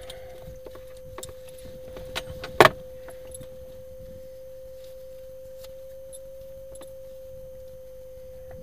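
A steady tone holding one pitch throughout, with small scattered clicks and rattles and one sharp, loud click about two and a half seconds in.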